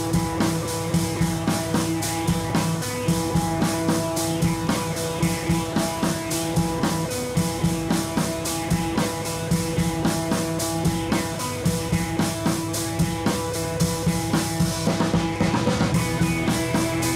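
Rock-style background music with a drum kit keeping a steady beat and guitar.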